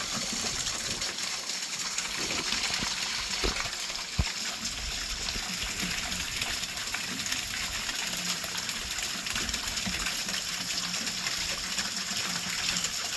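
Small waterfall running into a rock pool: a steady rush of splashing water, with a couple of faint knocks about four seconds in.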